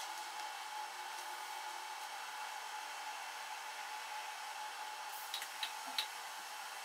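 Steady whirring hiss with a faint steady tone from the ARMAR-III humanoid robot's arm drives, in footage sped up four times. A few short light clicks come a little after five seconds in as the cup is set into the dishwasher's wire rack.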